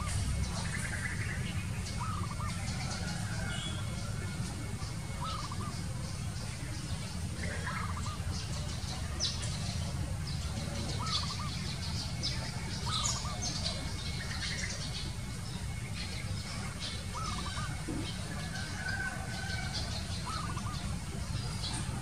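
Birds calling: short arched calls repeat every one to three seconds, mixed with many brief high chirps from small birds, over a steady low rumble.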